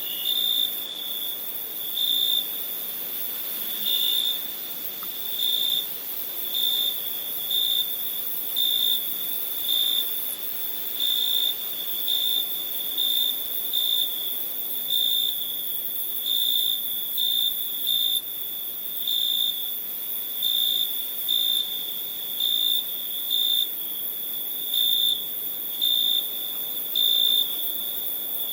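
Crickets chirping: a steady high-pitched trill with louder chirps about once a second, over a fainter, higher hiss.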